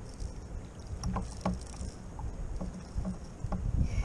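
Fish being handled in a rubber-mesh landing net on a fishing kayak: a scatter of small clicks and knocks, some with a short metallic ring, over a steady low rumble of water and wind against the hull.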